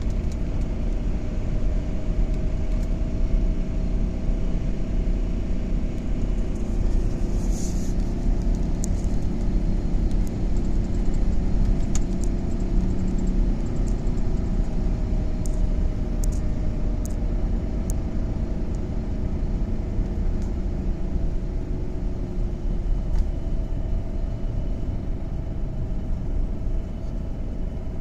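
Front end of a 2010 Dodge Charger making a growl or purr noise: a steady low rumble with several faint tones that drift slowly in pitch, and a few short clicks.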